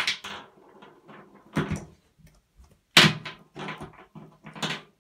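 Bouvier des Flandres puppy knocking small plastic shower bottles around the floor of a bathtub: a string of irregular knocks and clatters, the loudest about three seconds in.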